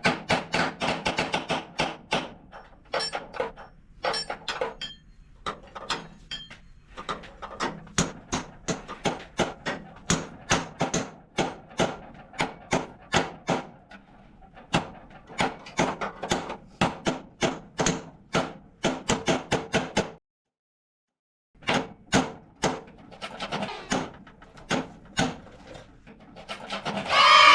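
A hammer striking sheet steel again and again, about three blows a second, each with a short metallic ring. The blows stop for a moment a little past two-thirds through, and a louder continuous sound starts just before the end.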